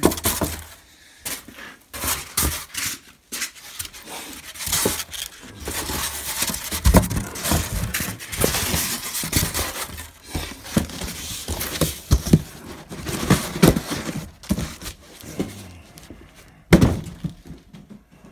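Metal bandsaw riser-kit parts and packing material being put back into a cardboard box: repeated knocks and clatter with rustling, and one sharp knock near the end.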